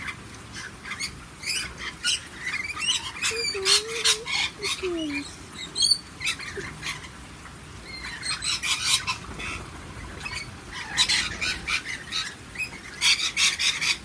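A flock of rainbow lorikeets calling: a dense mix of shrill screeches and chatter in overlapping bursts, busiest about eight to nine seconds in and again near the end.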